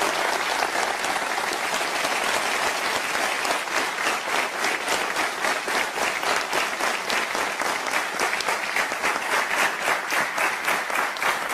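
Studio audience applauding. The clapping settles into a steady rhythmic clap in unison from a few seconds in.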